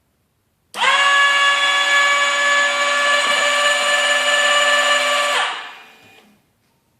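2009 Kawasaki Ninja 650R's electric starter whirring with a steady high whine for about four and a half seconds, then winding down and falling in pitch; the engine does not fire.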